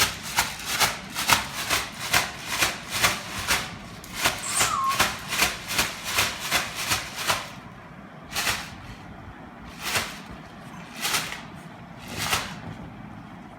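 Rhythmic rubbing or scuffing strokes, about three a second, thinning out to single strokes every second or so after about seven seconds.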